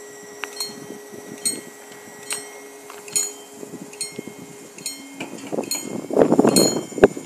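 Italian level-crossing electronic bells (TD 96/2 sound units) ringing single strokes about every 0.8 seconds while the barriers come down, warning that a train is approaching. A steady low hum runs under them and stops about five seconds in, and near the end a loud gust of wind buffets the microphone.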